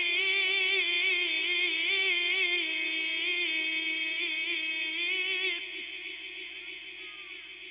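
A man's voice chanting Quran recitation in the melodic tajwid style, holding one long ornamented note with a wavering pitch into a microphone. It breaks off about five and a half seconds in, leaving a fading echo.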